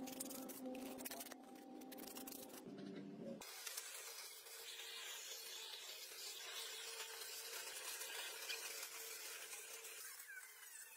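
Abrasive scrubbing on a rusty cast-iron engine block: scraping strokes for the first few seconds. After an abrupt change about three and a half seconds in, a steady gritty hiss of brushing on engine parts follows.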